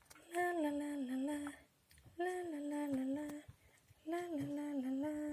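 A woman's voice humming the same short, wordless phrase three times, each one starting a little higher, dipping, then holding a steady note.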